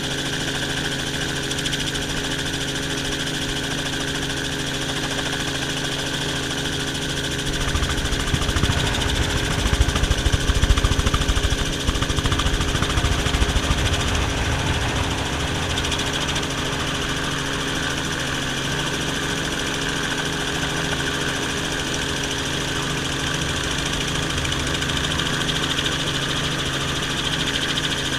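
Helicopter engine and rotor, heard from inside the cabin: a steady drone with a constant low hum. About eight seconds in, a deeper rumble swells up for several seconds, then settles back to the steady drone.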